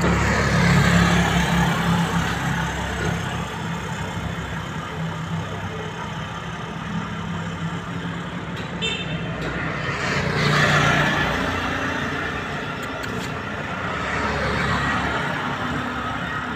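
Street traffic: a motor vehicle engine running steadily, with vehicles going by, loudest about a second in and again around ten seconds.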